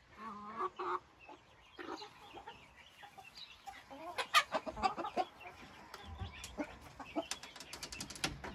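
Silkie chickens clucking in short calls. Sharp clicks and knocks come around the middle and again in a quick run near the end.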